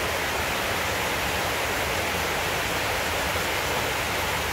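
A steady, even hiss of rushing noise with no distinct events.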